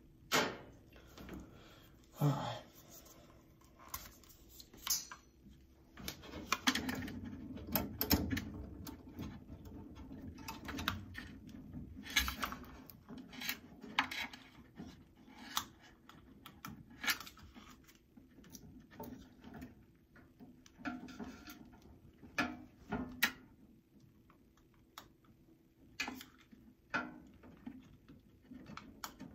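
Hands working on thermostat wiring and its plastic parts at the wall: irregular clicks, taps and rustles, the loudest clicks near the start and about 12 seconds in, over a faint steady hum.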